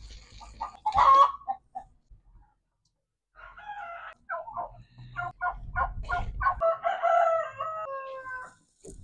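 Chickens clucking and a rooster crowing: a short loud call about a second in, then a run of quick clucks that gives way to a longer, drawn-out crow near the end.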